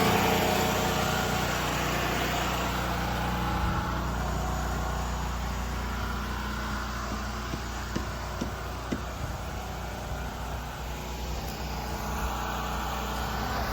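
An engine running steadily, with a few light clicks about eight seconds in.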